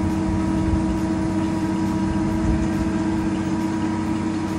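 Engine of a Marine Travelift boat hoist running steadily as it holds and lowers a boat in its slings, a low hum with a few held steady tones.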